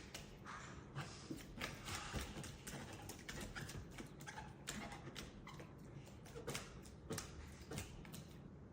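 Soft, irregular clicking and tapping, about two to three clicks a second.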